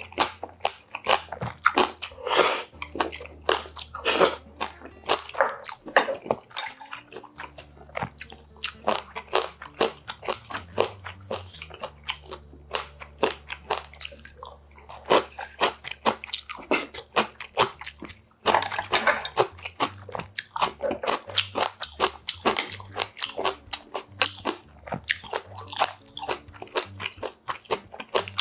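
Close-miked eating: a man chewing clam sujebi soup and crunching kimchi, with many small wet crunches and smacks, and louder slurps of broth now and then.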